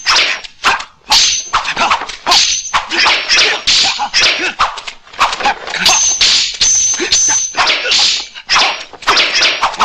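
Kung fu film fight sound effects: a dense run of fast swishes and whooshes of swung swords and bodies, sharp hits and clicks, and short shouts from the fighters, with a thin high metallic ring now and then.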